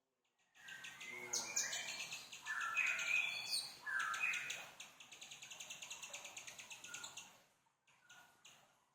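Small caged songbird, a 'rio-rio', singing one long, fast bout of rapid chattering trills mixed with short stepped whistled notes. It starts about half a second in and stops about a second and a half before the end.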